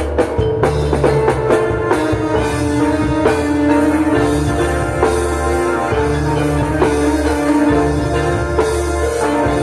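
Live Javanese gamelan music: bronze saron metallophones ringing in a steady pattern over kendang drum strokes and a deep, sustained bass.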